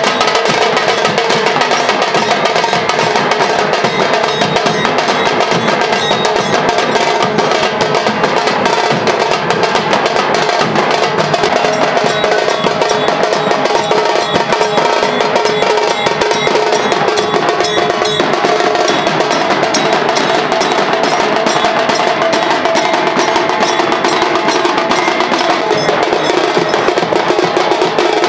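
Dhol-tasha troupe drumming: dhol barrel drums and tasha drums beaten in a fast, unbroken rhythm of dense strokes.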